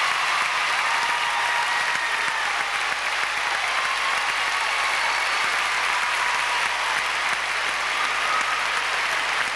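Audience applauding steadily after a baton twirling routine.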